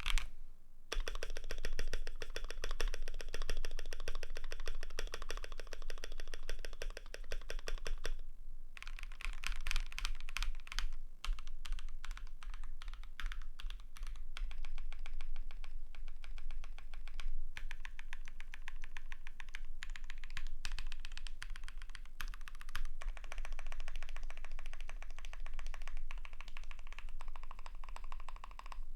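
Continuous fast typing on a Keychron Q3 mechanical keyboard with lubed KTT Strawberry linear switches, a steel plate and PBT keycaps: rapid, dense key clacks, with brief pauses about half a second in and about eight and a half seconds in.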